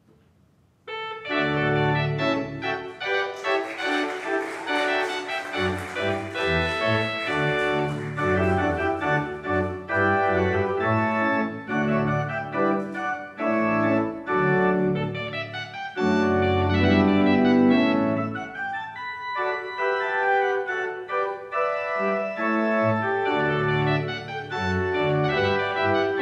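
Allen church organ starting the wedding recessional about a second in, playing sustained full chords over a deep pedal bass.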